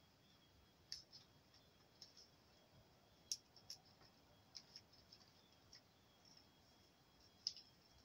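Faint, scattered clicks and crackles of hands working a car wiring harness: a bundle of wires and plastic parts being handled. The sharpest clicks come about three seconds in and near the end.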